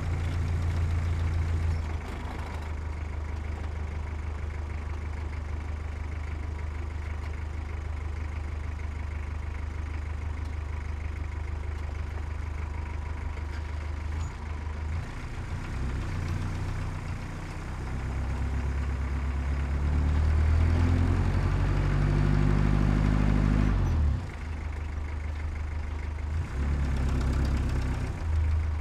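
Heavy truck engine running steadily at a low pitch. About halfway through it revs up, climbing in pitch and loudness for several seconds, then drops back abruptly and settles again.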